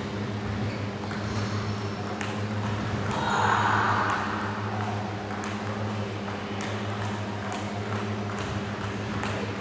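Table tennis balls ticking off tables and bats in a large hall: scattered sharp clicks over a steady low hum, with a brief louder noise about three seconds in.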